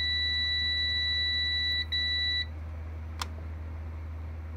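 Centurion RT3000 UPS beeping as its on/mute and select buttons are held to turn the inverter back on: one long steady high beep that stops about two seconds in, followed at once by a short beep. A single sharp click comes about a second later, over a steady low hum.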